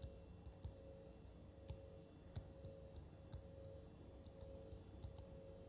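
Faint, irregular clicks and ticks of a stylus tapping and writing on a tablet screen, a few a second, over a faint steady hum.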